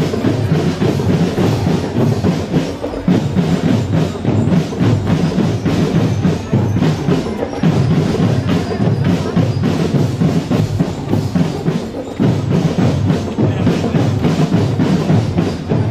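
Marching drum corps percussion playing a fast, continuous cadence: bass drums under rapid snare and tenor drum strokes.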